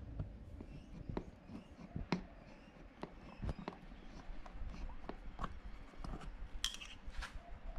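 Scattered small clicks and taps of a screwdriver and long-nose pliers being handled and worked in a motorcycle's battery compartment under the seat, with a short brighter scrape near the end.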